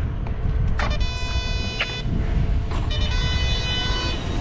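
A horn-like signal tone sounds twice, each time for about a second, over a steady low rumble.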